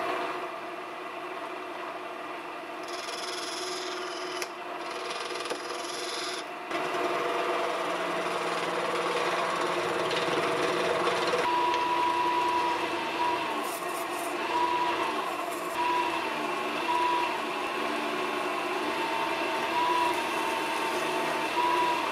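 A small lathe runs while a hand-held turning scraper cuts a spinning Delrin rod, peeling it into long stringy shavings. The lathe's steady running tone sits under a continuous scraping hiss from the cut, and a wavering whine joins from about halfway through.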